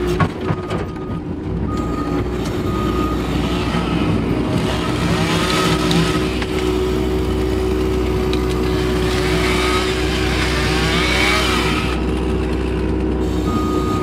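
Case skid steer's diesel engine running steadily under work, heard from inside the cab. A higher, wavering sound rises over it from about five seconds in and fades near twelve seconds.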